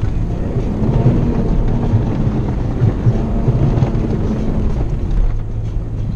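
Cabin noise inside a Toyota four-wheel drive on a muddy bush track: the engine running under a loud, steady low rumble from the tyres and suspension working over rough ground.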